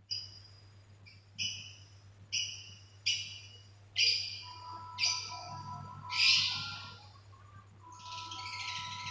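A bird chirping over and over, about one sharp call a second, each call starting suddenly and fading, with a faint steady hum underneath.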